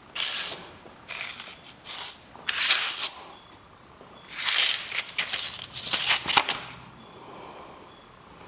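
Old photographic prints and cards being handled and shuffled, sliding and scraping over one another in about six separate dry rustles.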